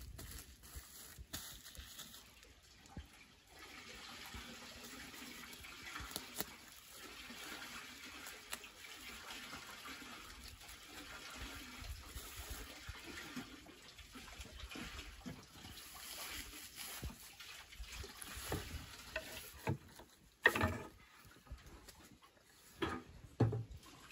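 Hands tucking and smoothing a woven sack packed with wet grated cassava in a wooden press box, a soft steady rustle. Near the end come a few loud wooden knocks as boards are laid onto the press.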